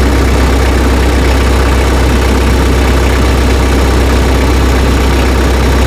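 Tractor engine running steadily, a constant low drone with no change in pitch or level.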